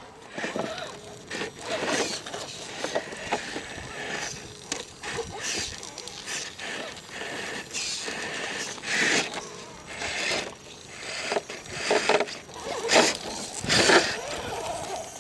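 Radio-controlled scale rock crawler climbing rocks: the small electric motor and gears whir in uneven spurts while the tyres and chassis scrape and grind on stone. It is loudest near the end.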